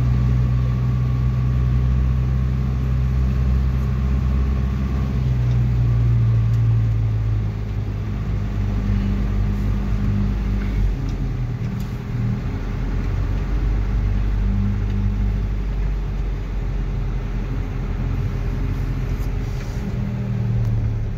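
Car engine and road noise heard from inside the cabin as the car drives slowly through a flooded street: a steady low drone that eases off a little after about seven seconds.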